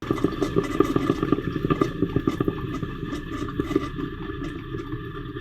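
Black & Decker 12-cup drip coffee maker gurgling and sputtering near the end of its brew cycle, with many small irregular pops over a steady hiss.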